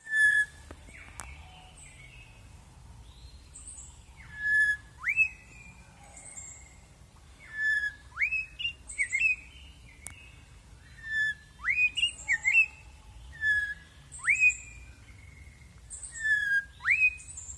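Black-headed oriole singing: short liquid whistled phrases, each a level note followed by a quick upward sweep, repeated about every two seconds. Fainter high chirps from other forest birds fall between them.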